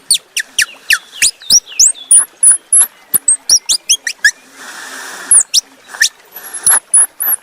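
Squirrel calling in a rapid run of high, squeaky chirps, each a quick falling note, with a short lull about five seconds in.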